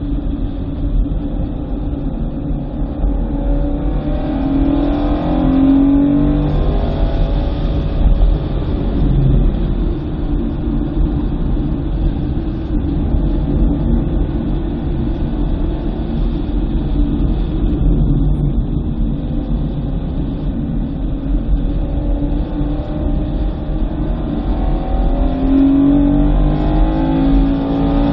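2009 BMW M3's 4.0-litre V8 running hard around a wet track, rising in pitch as it accelerates about four seconds in and again near the end, over a steady low rumble.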